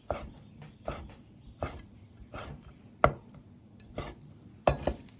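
Chinese cleaver slicing raw beef into small pieces on a chopping board, each stroke ending in a knock on the board, about one stroke every three quarters of a second. The loudest knock comes about three seconds in, and two come quickly together near the end.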